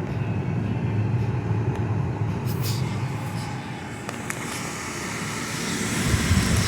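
GE dehumidifier running at max: a steady fan rush over a low hum, growing a little louder near the end.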